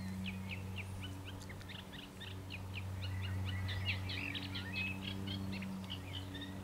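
Small birds chirping and twittering in a steady stream of quick, short notes, over a faint steady low hum.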